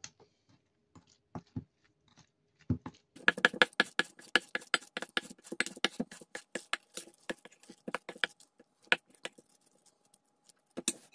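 Metal spoon scraping and clicking against a stainless steel mixing bowl as flour is worked into cottage cheese for syrniki dough. A few isolated taps, then rapid clicking and scraping from about three seconds in, thinning out near the end.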